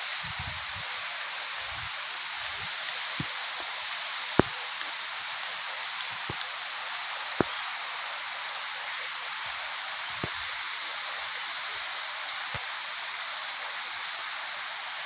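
Steady heavy rain falling during a thunderstorm, an even hiss, with scattered sharp ticks; the loudest is about four seconds in.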